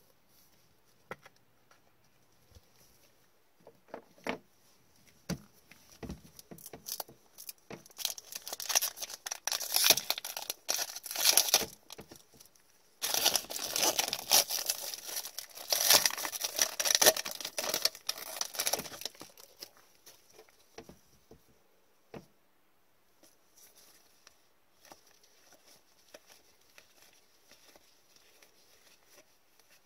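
Foil wrapper of a 2020-21 Upper Deck Series 1 hockey card pack being torn open and crinkled by gloved hands, in two long spells of loud crackling, followed by soft ticks of cards being handled.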